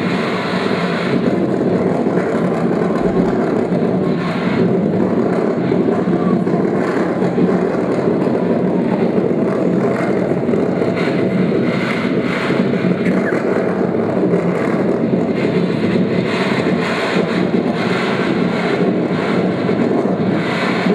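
Recorded sea-surf sound effect played loudly: a steady, dense rush of waves with no break.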